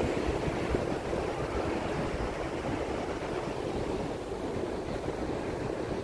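Steady wash of surf on a sandy beach, with a low wind rumble on the microphone.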